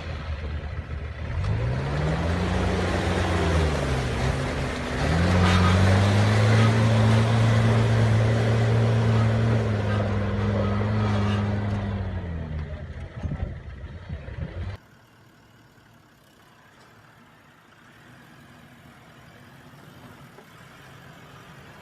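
A vehicle engine revving: it rises and drops once, then climbs to high revs and holds there for about seven seconds before easing off. About three-quarters of the way through, the engine sound cuts off abruptly and a much quieter steady background follows.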